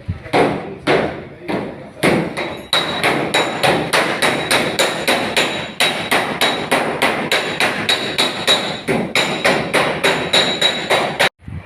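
Hammer striking metal in a fast, steady rhythm of about three to four blows a second, each blow ringing a little, after a few slower opening strikes; it cuts off suddenly near the end.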